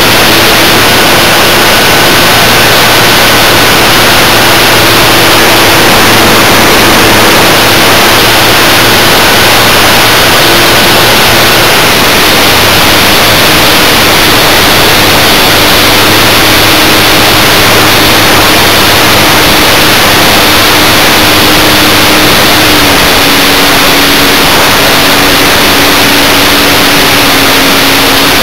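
Electric model plane's motor and propeller humming under loud rushing wind noise, as picked up by a small camera carried on the plane in flight. The motor's pitch steps down slightly twice near the end.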